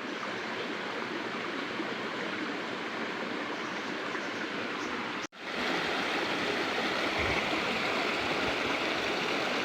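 Steady rush of running stream water. It cuts out for an instant about five seconds in, then carries on a little louder.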